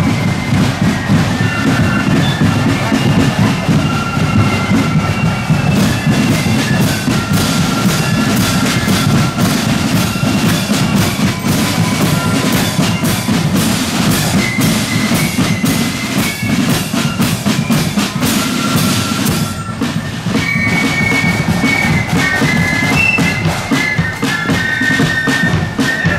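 Marching flute band playing a tune: a high flute melody over rattling side drums and bass drum beats, with a brief break about three-quarters of the way through.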